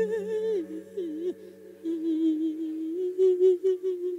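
Monk chanting a Thai Isan lae sermon into a microphone: long held notes without clear words that waver up and down, with a short break about a second in. Steady droning tones sound underneath.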